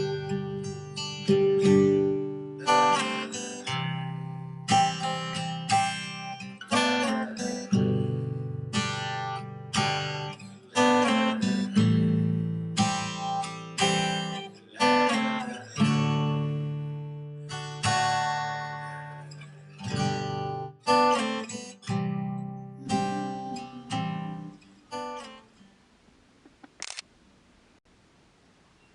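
Acoustic guitar music, plucked and strummed chords, that stops about 25 seconds in and gives way to quiet.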